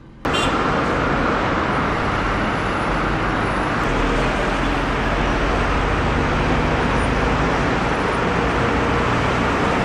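Steady city traffic noise: engines and tyres blending into one continuous wash of sound that sets in suddenly and holds level.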